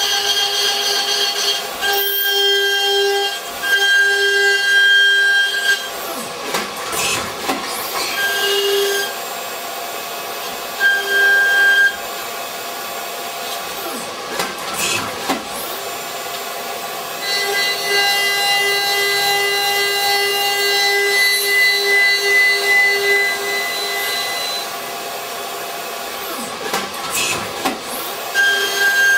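Haas DT1 CNC machine boring a hole in an oil pan, cutting dry with the coolant off: the cut gives a high, ringing whine that comes and goes in stretches of a few seconds, with a few sweeping dips and rises in pitch along the way.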